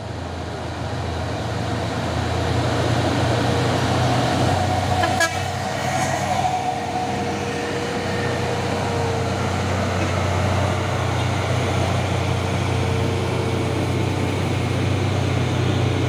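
Heavy diesel truck engine labouring under load up a steep climb. It is a loud, steady, low running that grows louder over the first few seconds, with a faint steady whine above it.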